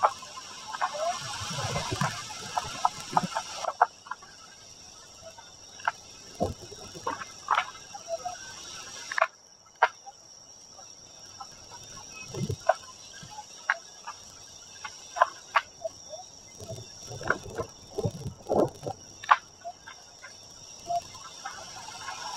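Distant carnival street procession heard through wind: scattered sharp cracks and knocks at an irregular pace, with wind buffeting the microphone for the first few seconds and a steady high whine throughout.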